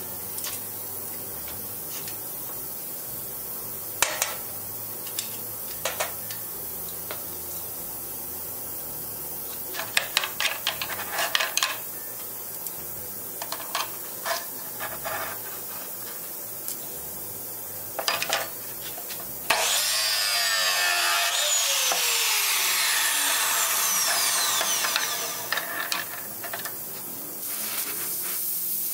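Metal tools on hot iron: scattered clicks and clanks as a red-hot rod is worked in a bending jig. About two-thirds of the way through, a loud steady rushing hiss with sweeping pitch sets in and lasts several seconds. Near the end an oxy-acetylene torch hisses as it heats the rod end.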